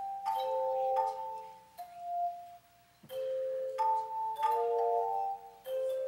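Handbells rung by a children's handbell choir: single notes and chords struck about once a second, each ringing on and overlapping the next, with a short gap about halfway through.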